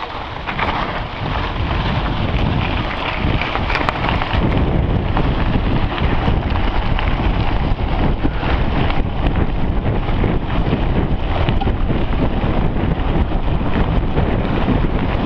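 Wind rushing over the microphone of a camera carried on a mountain bike riding fast on a dirt trail, with low tyre rumble and many small rattles and knocks from the bike over the rough ground.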